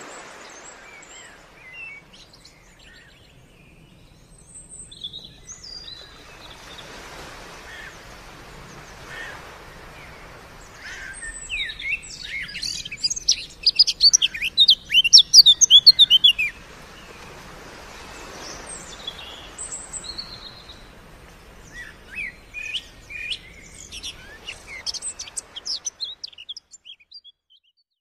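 Songbirds chirping and trilling over a faint steady rush of running water. The calls are scattered at first, then crowd into a loud run of rapid chirps near the middle, before thinning out again and fading near the end.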